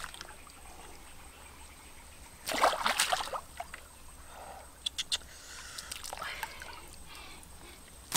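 Shallow water sloshing and splashing, with one louder splash about two and a half seconds in and a few sharp clicks around five seconds.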